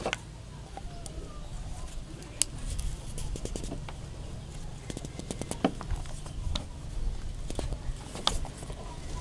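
Plastic handle grips being pushed onto the steel handles of a pair of pliers: scattered small clicks and brief scrapes of plastic against metal.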